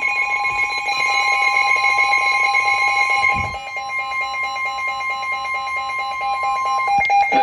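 Emergency Alert System attention signal: a steady alarm of several sustained tones held together. The higher tones drop away about three and a half seconds in, and one of the remaining tones cuts off near the end.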